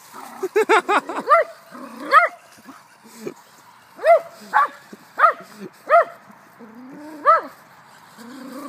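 Poodle yipping excitedly at a moving radio-controlled toy truck: short, high-pitched yips, a quick run of about five near the start, then single ones every second or so.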